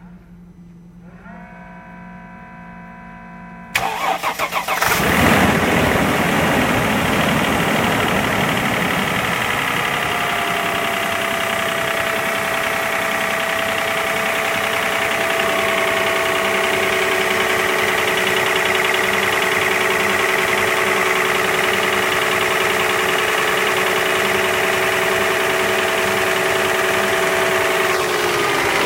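Mercedes-Benz M112 V6 petrol engine started from cold: after a brief steady tone, the starter cranks about four seconds in, the engine catches about a second later and settles into a steady idle. The owner is asking about a knock in it that appeared after the valve stem seals and timing chain were replaced.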